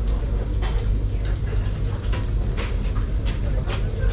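Korean BBQ restaurant table sounds: a steady low rumble with scattered light clicks and clinks of tableware.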